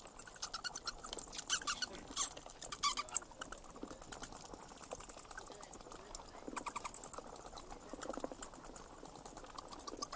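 Night insects chirping in repeated trains of very fast, high-pitched pulses, stopping and starting every second or two.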